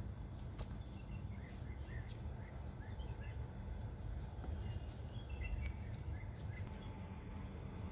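Quiet outdoor ambience: a steady low rumble, with scattered faint, short bird chirps in two spells, about one to three seconds in and again near six seconds.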